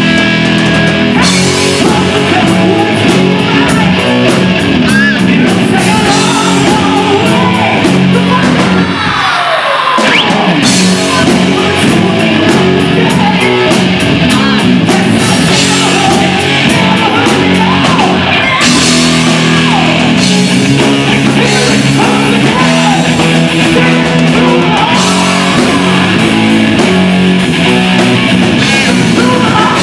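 Live heavy metal band playing through a PA: distorted electric guitars, electric bass and drum kit in a loud, steady passage, with one sound sweeping down in pitch about nine seconds in.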